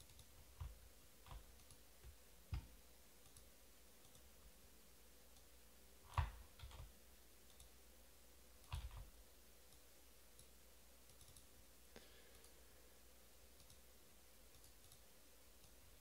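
Near silence broken by a few scattered clicks and soft knocks, the loudest about six seconds in and another close to nine seconds in.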